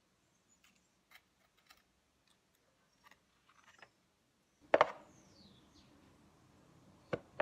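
Small metal washers clicking and clinking faintly as they are picked through by hand, followed by two sharp, louder knocks in the second half, the first a little before the midpoint and the second near the end.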